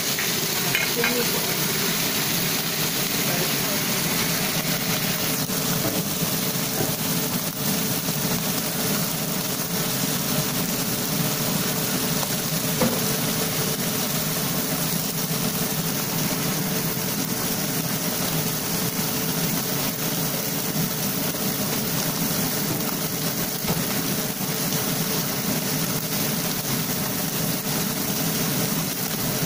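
Whole ka-bang croakers frying in hot oil in a pan: a steady, even sizzle with a low steady hum underneath.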